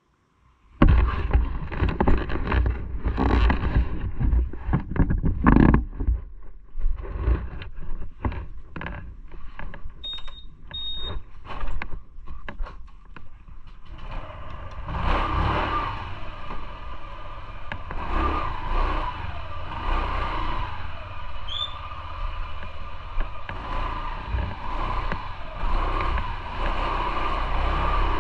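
Irregular clattering and knocking of gear being handled, with two short high beeps about ten seconds in, then a motorcycle engine running steadily from about fifteen seconds in, rising and falling slightly in pitch.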